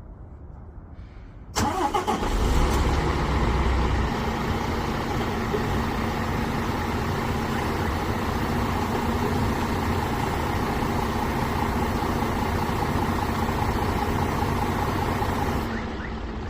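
MAN TGX 510 truck's six-cylinder diesel engine cranking and firing up about a second and a half in, then idling steadily; it becomes quieter and duller near the end.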